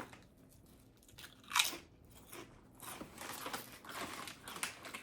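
A person biting into crunchy food close to the microphone: one loud crunch about a second and a half in, then softer crunchy chewing.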